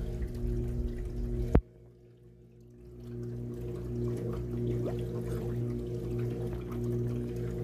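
Water trickling and pouring into a fish pool over a steady electric hum. A sharp click comes about a second and a half in, the sound drops out almost at once, then fades back in over the next second or so.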